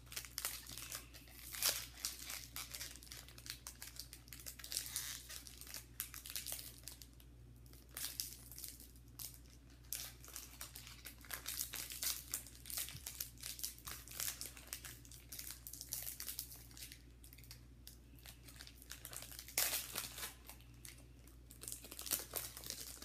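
Foil wrapper of a football trading-card pack crinkling and tearing as it is ripped open by hand, in irregular rustling bursts, loudest at the start and about twenty seconds in.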